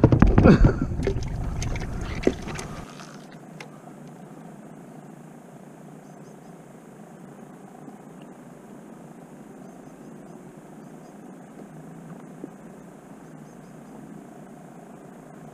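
Brief clatter and clicks as a plastic fish bucket's lid is handled and shut on a kayak, then a faint steady hiss of outdoor air and water.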